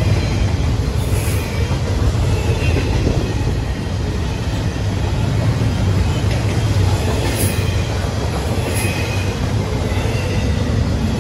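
Double-stack intermodal freight cars rolling past at close range: a steady low rumble of steel wheels on rail, with a few brief high wheel squeals.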